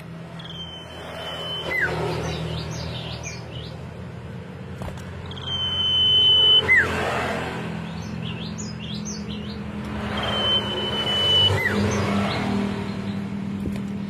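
Common iora (cipoh) singing three similar phrases about five seconds apart. Each phrase is a long, level whistle, then a quick downward slur and a run of short high notes. A steady low hum runs underneath.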